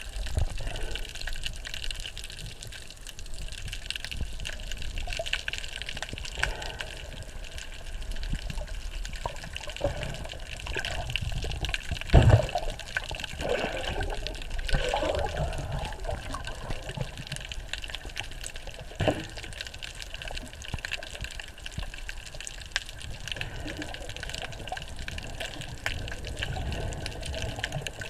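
Muffled water noise picked up by a camera held underwater: a steady wash of sound with a few short knocks, the loudest about twelve seconds in.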